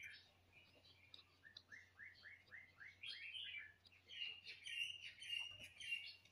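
Faint birdsong: a quick series of downward-sweeping chirps, about four a second, then a run of higher trilling notes over the last couple of seconds.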